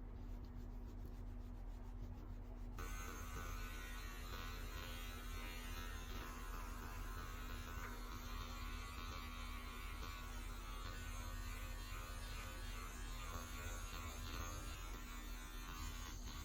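A steady low electrical hum. From about three seconds in, a steady higher-pitched hiss or whir joins it, then cuts off abruptly just before the end.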